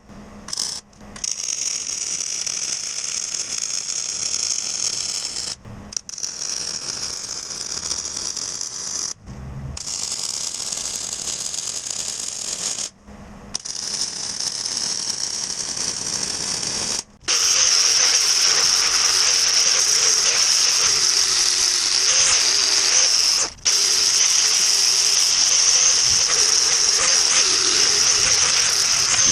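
A power tool running in long stretches, stopping briefly every three to six seconds, louder and steadier from a little past halfway.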